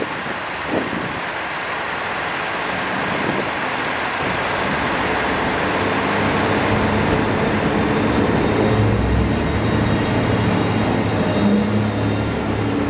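Daewoo DRC diesel railcar set approaching and passing at speed. Its engine hum and running noise build steadily louder through the second half.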